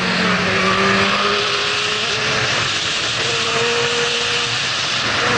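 Yamaha R6's inline-four engine running through a Termignoni full exhaust while riding, its pitch stepping up and down a few times with the throttle. Heavy wind rush on the microphone runs under it throughout.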